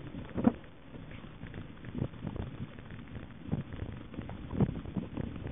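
Mountain bike jolting over a rough dirt trail, picked up at the handlebars: irregular knocks and rattles over a low rumble of tyres on dirt.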